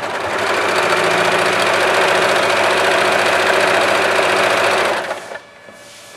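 Usha Janome Allure electric sewing machine running steadily while stitching a zigzag, then stopping about five seconds in.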